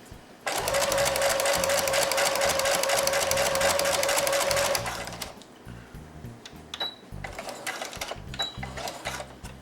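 Brother SQ9185 computerized sewing machine with the walking foot fitted, stitching through folded vinyl. It starts about half a second in, runs fast with a steady motor whine and rapid needle clatter for about four seconds, then stops, and a few light clicks follow.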